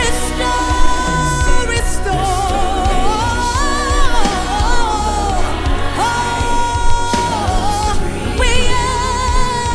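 Gospel-style worship song: a sung melody with held, wavering notes over a steady beat.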